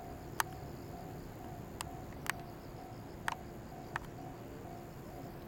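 Japanese railway level-crossing alarm ringing in its steady repeated clang, about three strokes a second; it keeps sounding because a car is trapped in the crossing. About five sharp clicks come at irregular moments, and a faint steady high insect-like whine sits under it.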